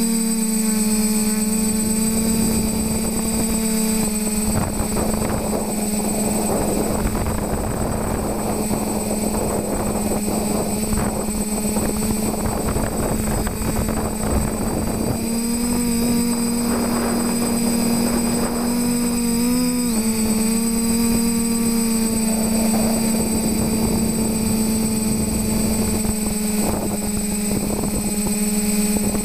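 TBS Discovery quadcopter's brushless electric motors and propellers humming steadily, heard close up on board, over a rushing noise. The pitch rises slightly about halfway through, wobbles, and settles back a few seconds later.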